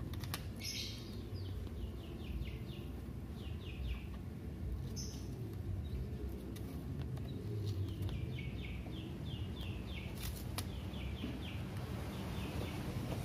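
A small bird calling in quick runs of short descending notes, several a second, over a steady low background rumble. Twice there is a short scratchy rasp as paper masking tape is pulled off its roll.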